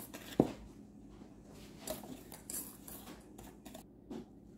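Wire whisk in a metal mixing bowl: one sharp knock against the bowl about half a second in, then faint scraping and ticking as a dry flour, baking powder and sugar mix is stirred.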